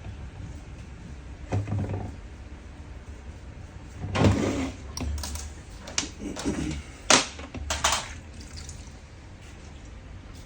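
Knocks and short scraping clatters of tools and metal parts being handled during diesel fuel pump repair, a few irregular strokes with the sharpest around the middle, over a low steady hum.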